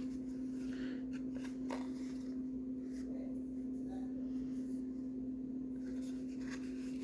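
Faint handling noises over a steady low hum: a few light clicks and rubbing as the pieces of a small plastic toy doghouse playset are moved about.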